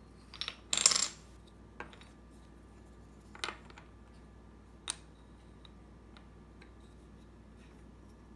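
Pentomino puzzle pieces being picked up and set down on a tabletop: a handful of separate clicks and knocks, the loudest a short clatter about a second in, then a few lighter taps.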